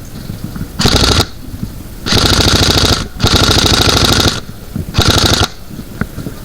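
Airsoft gun firing on full auto in four bursts of rapid clicks: a short burst, two longer bursts of about a second each, then another short burst.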